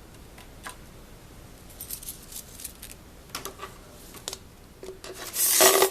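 Metal hand files clinking and rattling against each other as they are rummaged through, with a louder clatter that rings briefly near the end.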